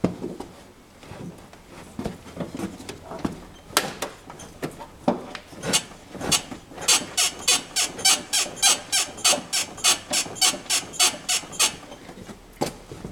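Squeaking from the straight control arm in a Mitsubishi Galant's suspension. Scattered creaks and knocks lead into a fast, even run of sharp squeaks, about three or four a second, lasting some five seconds, before they stop near the end.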